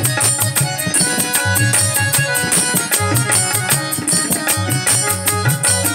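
Instrumental interlude of a live folk song: an electronic keyboard organ plays a sustained melody over a steady, fast tabla rhythm with a pulsing low beat.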